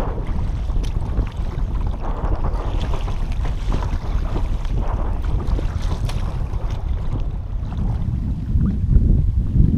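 Wind buffeting the microphone in a steady low rumble, over choppy lake water splashing as a double-bladed kayak paddle dips on alternate sides, roughly once a second.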